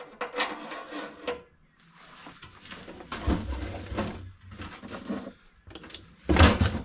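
Clattering, scraping and knocking as metal parts for a fuel tank are handled and set down on a workbench, with the heaviest knock near the end.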